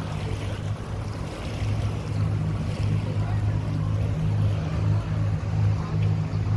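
Engine of a small wooden passenger boat running steadily under way, a low even drone, with water and wind noise over it.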